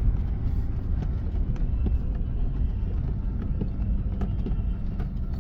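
Toyota Land Cruiser Prado driving slowly over rough off-road ground, heard from inside the cabin: a steady low rumble from the engine and tyres, with frequent small knocks and rattles as it bumps along.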